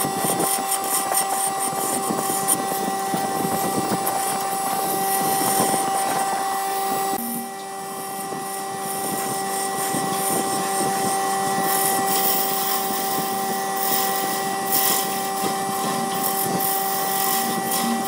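Wood lathe running with a steady whine while a turning tool scrapes and cuts the spinning wood. The cutting noise eases for a moment about seven seconds in, then picks up again.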